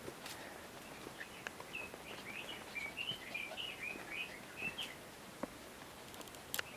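A songbird singing a rapid, warbling run of short chirping notes for about four seconds, over the hiss of the forest, with scattered sharp clicks of footsteps on the trail.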